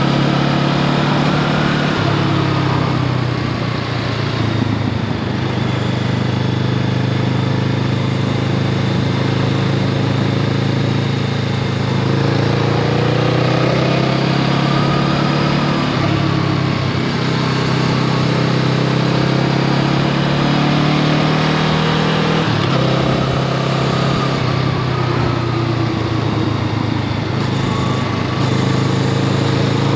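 Honda Rebel 500's parallel-twin engine running under way, its pitch rising and falling several times as the ride goes on, over a steady rush of wind and road noise.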